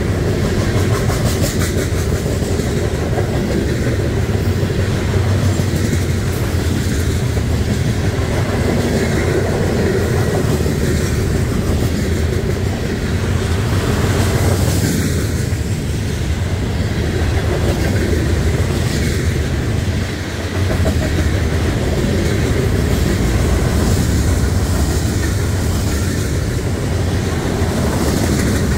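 A long freight train of covered hoppers and tank cars rolling past close by: a steady, loud rumble of wheels on rail with clickety-clack over the rail joints.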